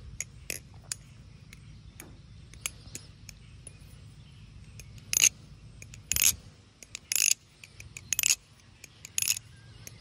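Firefly V2 balisong trainer being flipped, its metal handles clacking as it swings open and shut. Light clicks come first, then sharp clacks about once a second through the second half.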